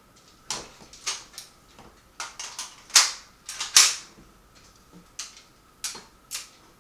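A run of about a dozen sharp clacks and clicks from guns being handled, irregularly spaced, the two loudest near the middle.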